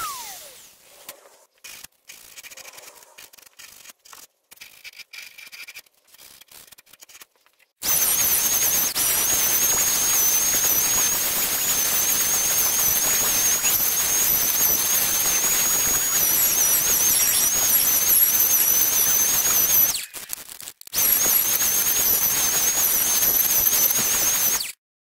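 Electric random orbital sander sanding a Douglas fir block. It winds down at the very start, is switched on again about eight seconds in and runs with a high whine, stops briefly about twenty seconds in, starts again and cuts off suddenly near the end.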